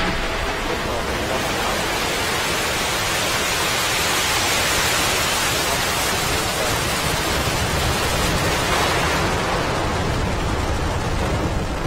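Steady rushing roar with no tone in it, the distant sound of a Falcon 9 rocket's engines during launch. It swells slightly toward the middle and begins to fade at the very end.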